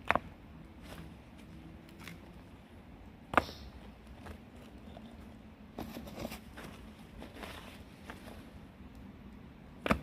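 Loose broken bricks being picked up and set down against one another around a fire pit: a few sharp clacks of brick on brick, the loudest about three seconds in and a small cluster around six seconds, with softer scrapes and clinks between.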